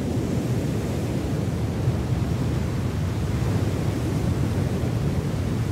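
Tsunami floodwater surging in a steady, deep rush with no break, heaviest in the low rumble.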